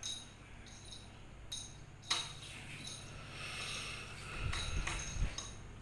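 High, steady insect chirping that breaks off and starts again, with a sharp click about two seconds in and a few low, dull bumps near the end.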